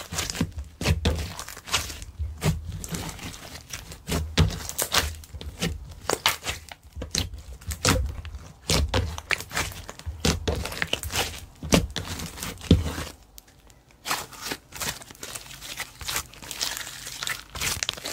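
Hands kneading and stretching slime: irregular sticky pops, clicks and crinkly crackles, with soft low thuds of the slime being pressed for most of the stretch, giving way to a denser crackling near the end.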